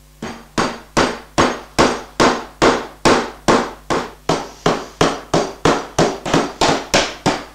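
Mallet tapping a dovetail joint home while a glued-up drawer is assembled, wood knocking on wood. It makes a steady run of sharp knocks, about two and a half a second, starting just after the start.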